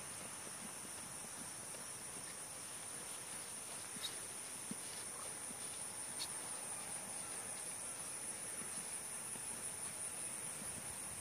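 Steady high-pitched chorus of field insects, unchanging throughout, with a couple of faint clicks about four and six seconds in.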